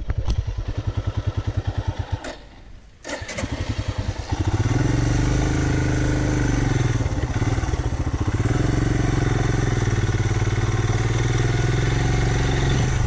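2018 Royal Enfield Himalayan's 411 cc air-cooled single-cylinder engine running at low trail speed with a distinct, even beat. It drops away briefly a little over two seconds in, then picks back up and runs louder and steadier under load from about four seconds on.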